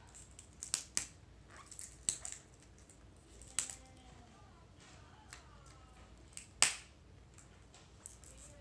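Scattered sharp snaps and crackles of tape and packaging being pulled and torn off a toy surprise egg, the loudest snap about two-thirds of the way through.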